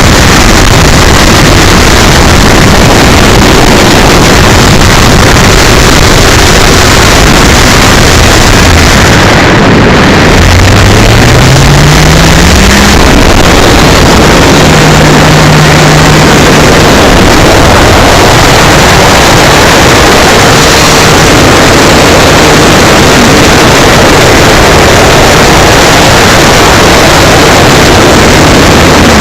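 Electric RC model airplane, an 850 kV motor turning an 11x9 propeller, recorded by a tiny keychain camera: a loud, distorted rush of wind noise throughout, with a faint motor-and-prop tone under it. About ten seconds in the motor tone rises in pitch over roughly three seconds, then briefly holds steady.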